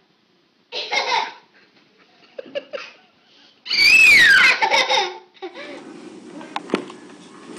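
A baby laughing in shrieks: a short outburst about a second in, then a longer, louder high-pitched squeal that falls in pitch. Near the end there is a steady low hiss with a few clicks.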